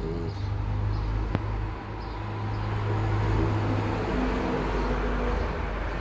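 Small dog snoring, a deep steady rasp that swells to its loudest around the middle, with a single sharp click about a second and a half in.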